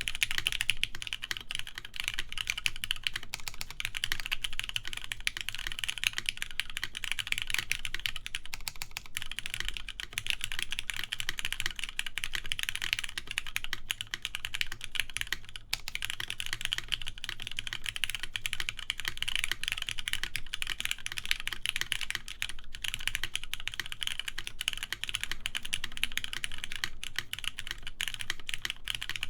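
Continuous typing on a TGR Jane v2 ME mechanical keyboard with lubed Cherry MX Black linear switches (62 g springs) in a polycarbonate plate and Cherry keycaps: a dense, steady stream of key clacks.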